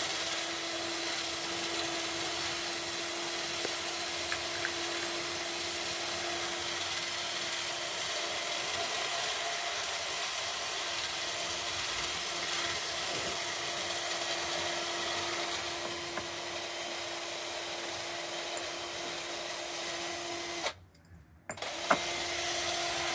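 Cordless drill spinning a wire brush against the engine casing of a Suzuki GS850G: a steady motor whine over a scratchy brushing hiss. It stops for about a second near the end, then runs again briefly.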